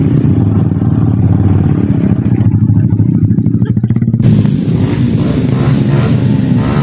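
Motorcycle engine running steadily with a rapid even putter as the bike rides carrying baskets of oil palm fruit bunches. About four seconds in the sound cuts abruptly to a brighter, noisier engine sound.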